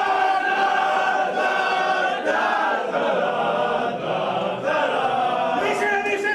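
A group of men singing a chant together in a team huddle, many voices holding long notes in unison.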